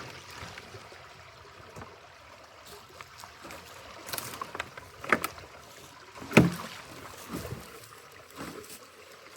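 Water sloshing in a flooded ditch, broken by a few sharp splashes; the loudest comes about six and a half seconds in.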